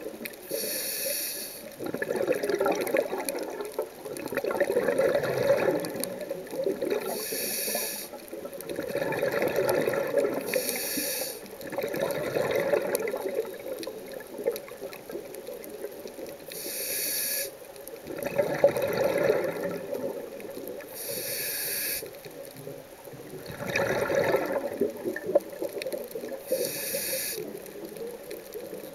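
Scuba diver breathing through a regulator, heard underwater: about six breaths, each a short hiss on the inhale followed by a few seconds of bubbling on the exhale, the bubbles being the loudest part.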